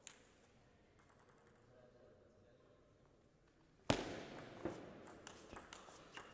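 Table tennis: a single ball click at the start, then a near-quiet pause, then a sharp loud knock about four seconds in as the point starts, followed by the celluloid-type ball's clicks off bats and table, roughly two a second, over shoe scuffs and hall noise.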